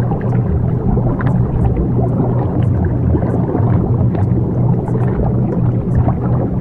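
Subliminal affirmation track: a steady low hum, the delta-wave tone, under a dense, even rumbling wash, with faint scattered high ticks.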